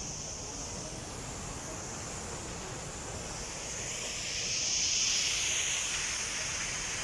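Steady rush of water from a waterfall and the sea, with wind on the microphone, growing louder for a couple of seconds past the middle.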